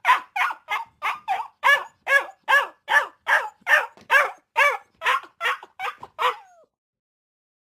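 A dog barking rapidly and steadily, about three sharp barks a second, then stopping about six and a half seconds in.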